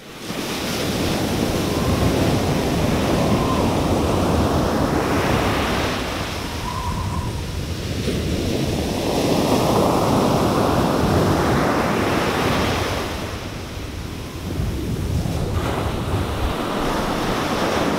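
Ocean surf: waves breaking and washing up on the shore in long surges that swell and ease, with some wind on the microphone.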